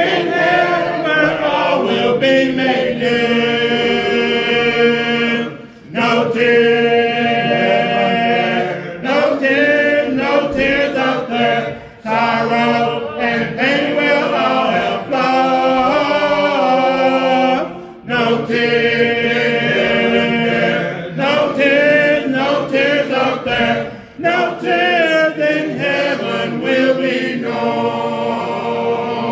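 Congregation singing a hymn a cappella, in phrases of about six seconds with a short breath between each.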